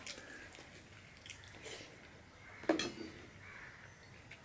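Close-up eating sounds: chewing and wet mouth noises while fingers squish rice and curry on a steel plate, with small clicks throughout and one louder sudden sound about two and a half seconds in.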